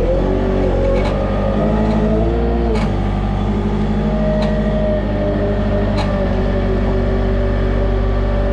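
Tractor engine running under load, its pitch rising and falling for the first few seconds and then settling to a steady run, with a few sharp clicks or knocks.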